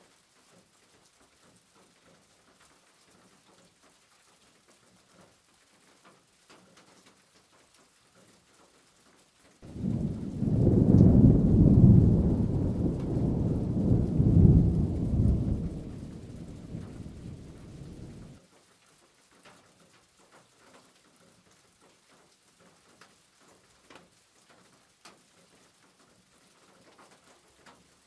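Chicken cooking in a pot on a gas hob makes a low rumbling rush for about nine seconds. It starts abruptly about a third of the way in and cuts off abruptly. Before and after it there are only faint ticks and taps from the mixing.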